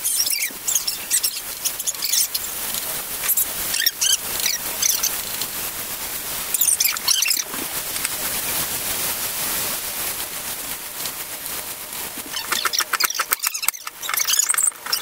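Chef's knife chopping onion and sweet peppers on a wooden cutting board in irregular strokes, with a quick run of chops near the end. Short high squeaks come and go.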